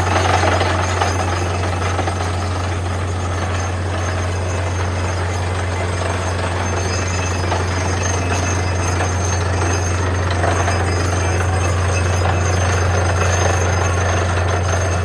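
Borewell drilling rig running steadily: a constant low engine and compressor drone under a dense rattling noise of the drilling.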